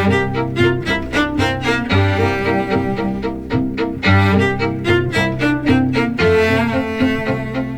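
Background music for strings: a quick run of short notes over sustained low notes.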